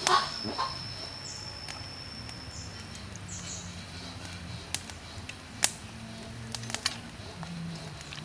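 Metal ladle scooping and pouring marinade over a pork leg in a steel wok: liquid splashing, with a few sharp clinks of the ladle against the pan, the loudest about halfway through. Faint bird chirps behind, with a high steady tone over the first three seconds.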